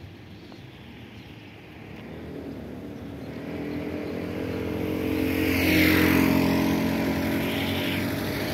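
A motor vehicle's engine drawing closer along the road and passing by, growing steadily louder and loudest about six seconds in.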